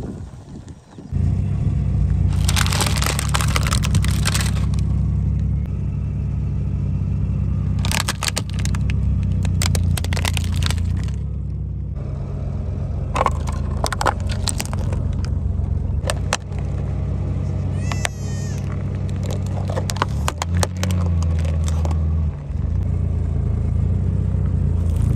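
A car's engine running steadily while objects crack and crunch under its tyres in several bouts of a few seconds each, with a brief wavering squeak about two-thirds of the way through.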